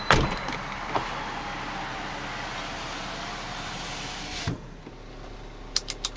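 Power window of a 1999 Volvo S70: a click from the switch, then the window motor runs steadily for about four and a half seconds as the glass closes, ending in a thump as it seats. A few quick clicks follow near the end as a climate-control knob is turned.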